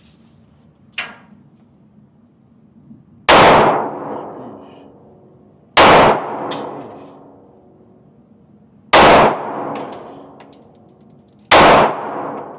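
Four pistol shots, spaced two to three seconds apart, each ringing out and dying away over about a second. A sharp click comes about a second before the first shot.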